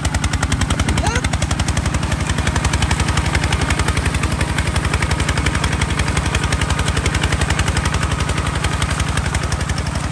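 Kubota ZT 155 DI walking tractor's single-cylinder diesel running hard with a rapid, even exhaust chug, working under load as its iron cage wheels churn in deep mud.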